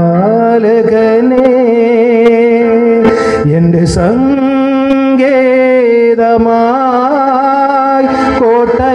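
A man singing a slow Malayalam devotional song into a microphone, holding long notes that waver and glide between pitches, with short breaths between phrases.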